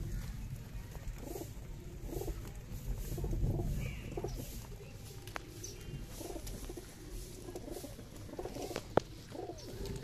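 A flock of domestic pigeons cooing over and over as they feed together on scattered grain. A single sharp click sounds about a second before the end.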